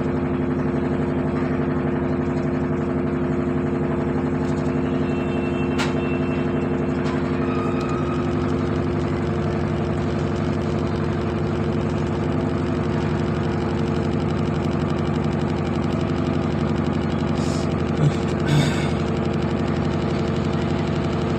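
Samsung inverter washing machine running, a steady motor hum with a fast vibrating rattle that changes about eight seconds in, with a couple of brief knocks near the end. The noise is put down to worn suspension rods (shock absorbers).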